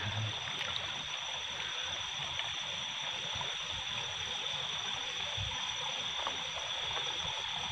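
Water of a shallow, rocky stream flowing and trickling steadily over stones. A steady high-pitched tone sounds in the background, and there are a few faint knocks as hands and net move among the stones.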